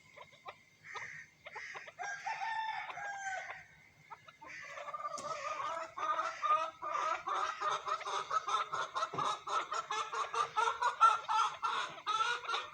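Teetar (francolins) calling: a few scattered calls at first, then from about four seconds in a fast, unbroken run of harsh repeated notes, about five a second.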